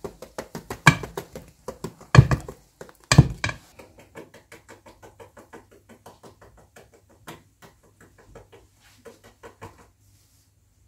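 Wire balloon whisk beating flour into thick chocolate brownie batter in a stainless steel bowl: quick rhythmic ticks of the wires against the metal, about five a second. Three louder knocks come in the first few seconds, and the ticking fades out near the end.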